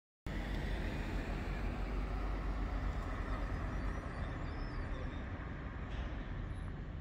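Outdoor street ambience of road traffic with a steady low rumble, starting suddenly a moment in.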